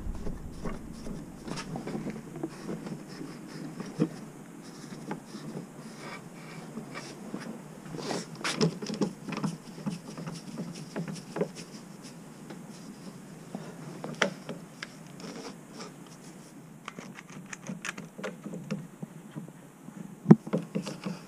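Bar clamps being tightened by hand on a glued-up white oak panel: scattered clicks, ticks and scrapes from the clamp screws, the metal clamp heads and the wood being handled, with one sharp knock near the end.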